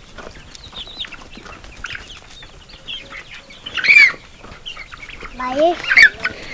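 A flock of young chickens clucking, with many short, high calls throughout and a louder squawk about four seconds in.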